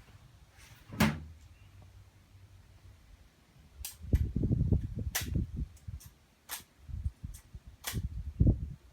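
Footsteps on the forest floor. A single sharp click comes about a second in, then from about four seconds there are irregular dull thuds with sharp snaps and clicks.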